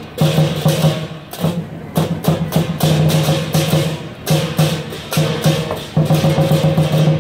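Lion dance percussion: a drum and crash cymbals beating a rhythm over a ringing tone, with the strikes coming faster and more evenly about six seconds in.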